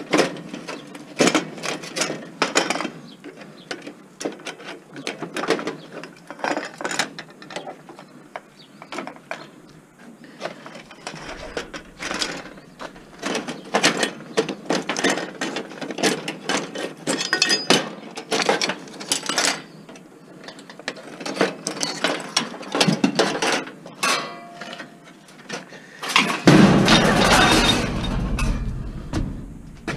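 Metal clicks, clinks and rattles of pliers working the coil burner elements and hardware of an old electric stove, in irregular bursts. Near the end comes a longer, louder rumbling scrape as sheet metal is handled.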